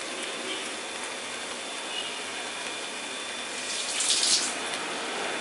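Rice and masala frying on a low flame in an aluminium pan, a steady sizzle, with a brief louder burst about four seconds in.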